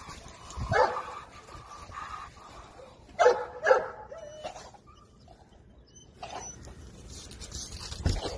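Dogs barking: a few short barks, the loudest two coming close together just after three seconds in, with a low thump near the end.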